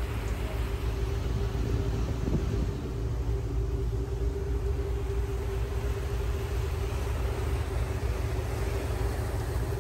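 Tour ferry's engine running steadily: a low rumble with a constant hum, under an even rushing noise.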